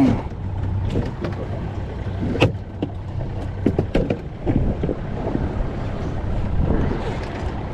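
Wind buffeting the microphone aboard a small fishing boat, over a steady low hum. Scattered sharp knocks of gear in the boat come through, the loudest about two and a half seconds in.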